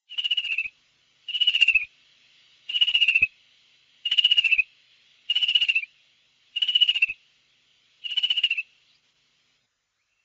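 An animal call repeated seven times at an even pace, about every second and a half: each a short, buzzy, high note that falls slightly.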